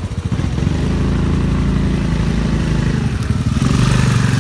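Motorbike engine running steadily while riding, its pitch dipping about three seconds in and then picking up again.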